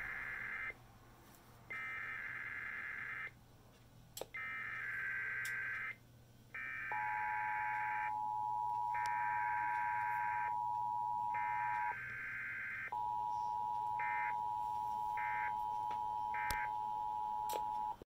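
Emergency Alert System SAME header tones, the relay of an alert: six screechy digital data bursts, each about a second and a half long with short gaps between. The steady two-tone EAS attention signal starts beneath them about seven seconds in, stops briefly near twelve seconds and resumes. Three short end-of-message data bursts follow about a second apart near the end.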